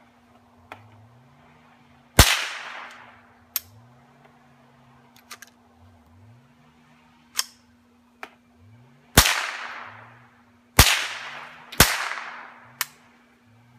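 Four shots from a Ruger 10/22 .22 rifle with a 3D-printed PLA receiver: one about two seconds in, then three close together near the end, each trailing off in an echo. Quieter sharp clicks between the shots come from working the action. The firing is uneven because the rifle is jamming, which the owner puts down to the bolt sticking.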